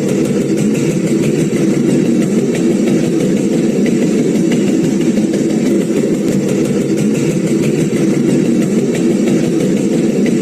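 Mechanical sieve shaker running steadily: a continuous motor rumble with a fast rattle.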